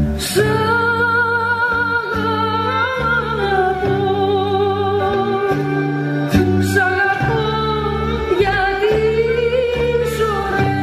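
Music with singing: a voice holds long, wavering notes over repeating chords, with a few sharp drum-like hits.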